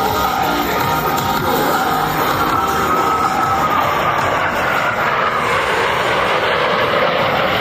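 Jet noise from Blue Angels Boeing F/A-18 Super Hornets, their twin turbofans running as the formation passes, with a whine that drops slowly in pitch partway through. Music plays underneath.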